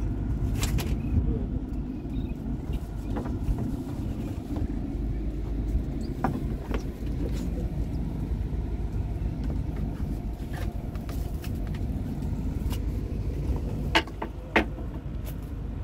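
Generator on a small fishing boat running steadily with a low, even rumble, powering its LED fishing lights. Two sharp knocks come near the end.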